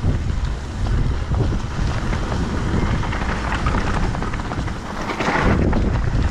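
Mountain bike rolling down a gravel trail: wind buffeting the microphone over the rumble and rattle of tyres and frame on the rough surface, with a brief louder hiss about five seconds in.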